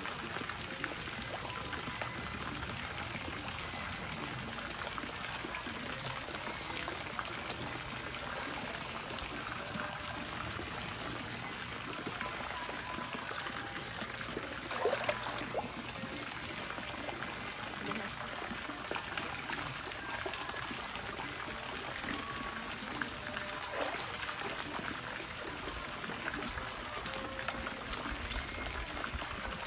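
Steady sound of running water, with one brief louder sound about halfway through.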